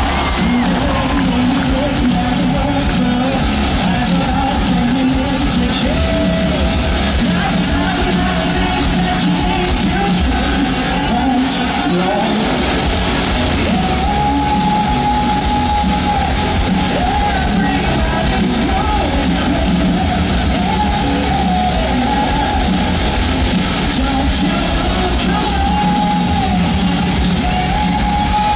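Hard rock band playing live through a stadium PA, with electric guitars, drums and singing. About halfway through, a melodic line of long held notes comes in over the band.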